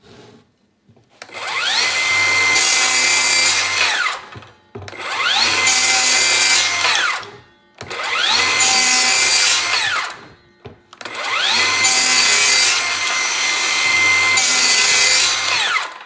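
Milwaukee M18 Fuel 7-1/4 inch brushless cordless circular saw making four cuts through wood: each time the blade spins up with a rising whine, runs steady through the cut, and winds down with a falling whine after the trigger is released.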